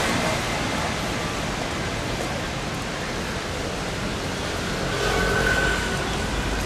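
Steady outdoor noise of a rain-wet city street, an even hiss, with a faint low rumble coming in about five seconds in.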